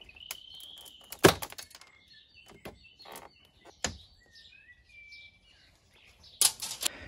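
Chrome plastic grille surround trim of a MINI F56 being pulled off the grille by hand: a series of sharp snaps and cracks as its clips give way and the trim breaks, the loudest about a second in and a quick cluster near the end.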